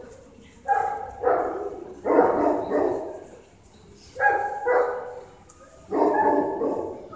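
A Great Pyrenees barking repeatedly, about six barks in loose pairs with short pauses between them, each bark trailing off in the echo of a concrete hall.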